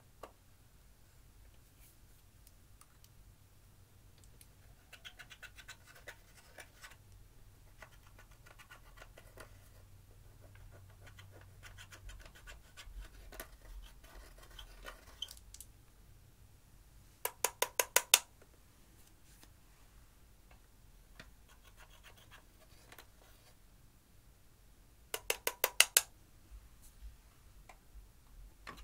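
A thin metal tool scraping and crumbling pressed eyeshadow out of the pans of a plastic makeup palette, with soft scratching and small clicks. Twice, a quick run of about six sharp taps stands out louder.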